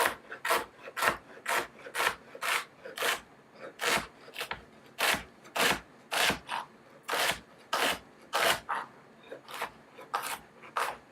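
A fennel bulb being sliced thinly, one short crisp cutting stroke about twice a second, evenly paced.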